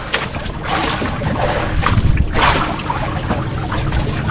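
Sea water sloshing and lapping against the hull and outrigger of a small wooden outrigger boat drifting at sea, with wind rumbling on the microphone and a few brief splashy surges.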